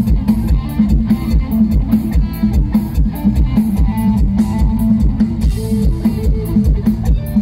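Mor lam band music over a loud stage sound system: electric guitar and bass over a steady, fast drum beat.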